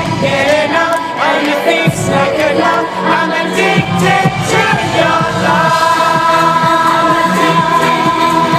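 Pop song with singing, played loud over a concert sound system during a sound check.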